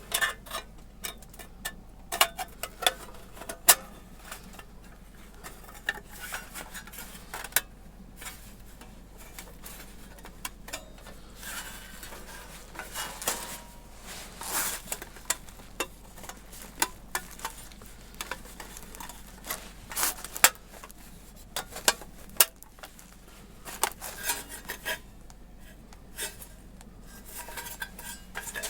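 Thin titanium fire-pit plates and parts clinking, tapping and scraping against each other as they are fitted together by hand, in scattered irregular knocks with rubbing in between.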